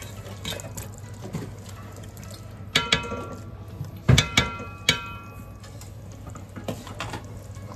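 A spatula stirring thick mutton curry in a large metal pot, the liquid sloshing, with several knocks of the spatula against the pot that ring briefly, a pair about three seconds in and more around four to five seconds.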